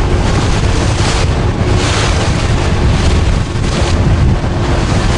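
Strong wind buffeting the microphone on a moving boat, a heavy low rumble over the rush of water and waves, with gusts swelling about one and two seconds in.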